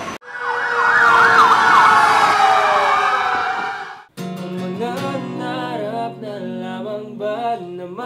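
A siren yelping rapidly up and down over loud street noise, cutting off abruptly about four seconds in. Guitar music with singing follows.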